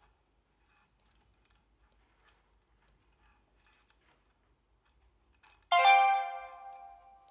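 Faint light clicking of metal picking tools in a lock, then nearly six seconds in a sudden loud bell-like ring that fades over about a second and a half.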